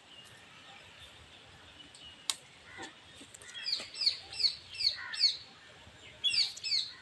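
A bird calling with short, high chirps that sweep downward: a run of five about two or three a second, then two more near the end. A single sharp click sounds about two seconds in.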